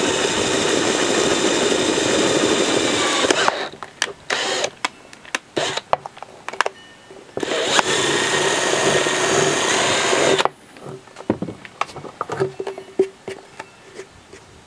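Cordless drill running as a 5/16-inch bit enlarges a pilot hole in a plastic bottle cap, in two steady runs of about three seconds each with short bursts and clicks between them. Scattered light clicks follow the second run.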